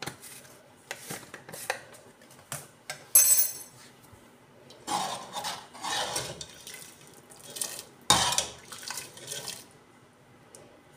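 Metal ladle stirring chickpea curry in a metal pot, scraping and knocking against the pot's sides and bottom. There is a sharp ringing clink about three seconds in, and longer scraping stretches later on.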